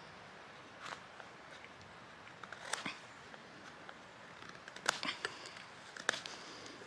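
Mora 510 carbon-steel knife paring a small piece of wood by hand: a few short, crisp slicing cuts about a second or two apart, the loudest two in the second half.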